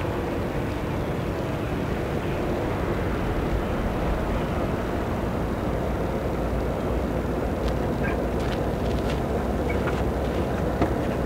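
Steady low outdoor rumble of open-air ambience, with a few short sharp clicks in the last few seconds.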